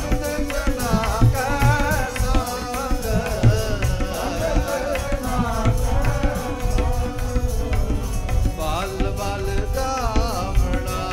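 Sikh kirtan: a singer's ornamented, wavering melody over a steady held drone, with tabla strokes keeping a rhythm in the bass.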